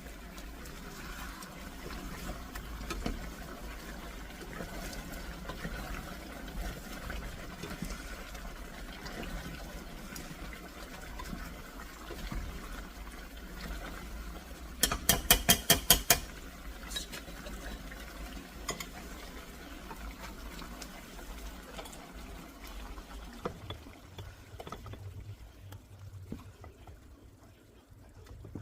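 Chicken wings simmering in sauce in a pot, a steady bubbling hiss with small scattered clinks. About halfway through comes a quick run of about ten sharp taps, and the simmering grows quieter near the end.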